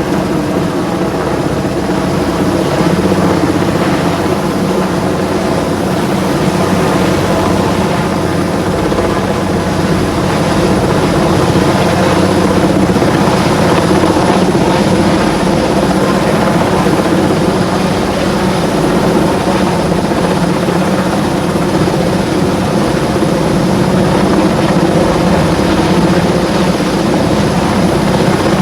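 Helicopter flying close, a loud steady drone whose pitch holds constant throughout.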